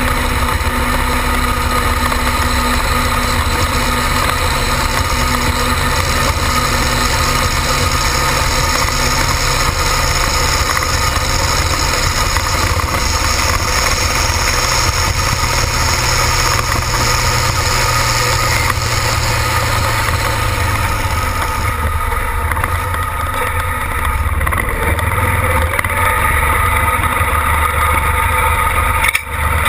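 Ford pulling tractor's diesel engine running hard as it drags the pulling sled, then easing off to a lower, steadier running sound about two-thirds of the way through as the pull ends.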